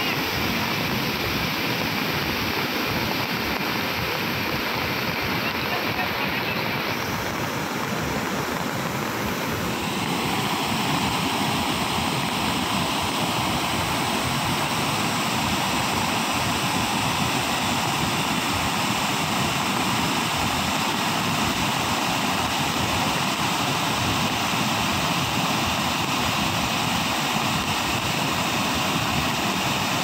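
Bhadbhada waterfall in spate, its heavy, muddy flow after rain making a steady rushing wash of water noise. The sound turns brighter about ten seconds in.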